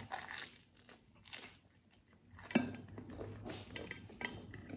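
Close-up chewing and crunching of a fried-batter Korean corn dog, with a few light clicks and taps. There is a near-silent lull in the middle.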